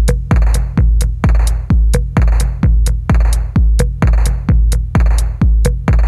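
Electronic dance music with a steady, loud kick drum at about two beats a second and crisp hi-hat clicks.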